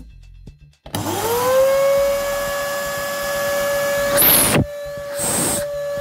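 LG C3249 NT canister vacuum cleaner switched on about a second in: its motor spins up with a rising whine and then runs steadily. This is a test run after its clogged motor filters were cleaned, to check whether the thermal cutout still shuts it off. Near the end come two bursts of loud rushing air with a high whistle, from a hand over the suction opening.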